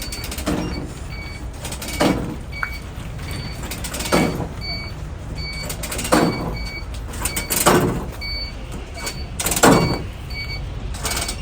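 A bus running with a steady low engine rumble. A whoosh passes about every two seconds, and a short high beep repeats about twice a second.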